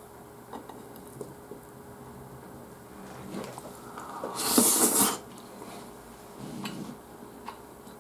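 A person eating omelet rice with a spoon and chopsticks: light clicks of cutlery against the plate, then a short, loud rushing mouth noise about halfway through as a mouthful goes in, followed by softer mouth sounds.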